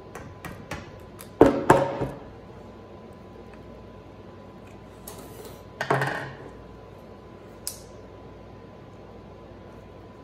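Metal hand tools, a screwdriver and a hammer, clanking onto a wooden tabletop: a few light clicks, two sharp clanks about a second and a half in, another clank with a short ring around six seconds in, and a light tick near the end.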